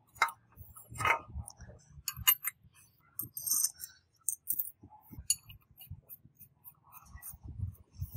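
Light metallic clinks and clicks as a motorcycle steering stem is slid up through the frame's head tube and its bearing cone and nut are set on top, with a few soft handling knocks between them.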